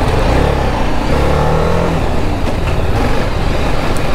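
TVS Apache RR 310's single-cylinder engine running on the move, over a heavy steady rush of noise, with a brief rise in the engine note about a second in.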